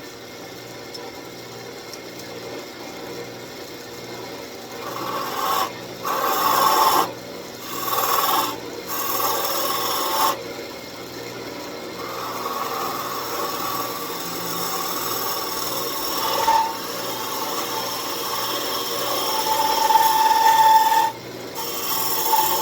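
Wood lathe running with hand turning tools (a scraper and a hook tool) cutting spinning end-grain walnut. The motor hums alone at first; about five seconds in come three short cuts, then a longer steady cut, with a brief ringing tone near the end.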